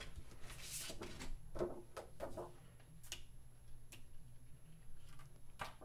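A magnetic paper-feel screen protector being handled and laid onto an iPad Pro: a brief faint rustle, then soft handling sounds and a few light, separate clicks as it is fitted.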